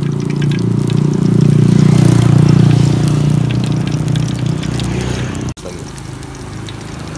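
Hot cooking oil bubbling and sizzling in a wide wok as egg fries for telur gulung. A louder low droning hum swells to its peak about two seconds in and stops abruptly about five and a half seconds in, leaving only the quieter sizzle.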